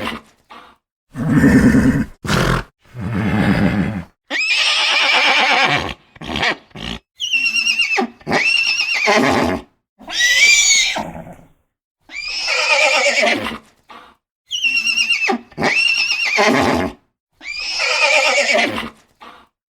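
Horses neighing and whinnying in a series of separate calls, each about one to two seconds long, with short silent gaps between. Most are high, shrill whinnies that drop in pitch at the end; a few are lower, deeper calls.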